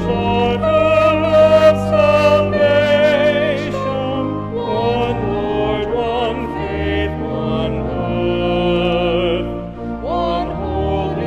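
Hymn singing: a few voices with vibrato carrying the melody over long held organ chords.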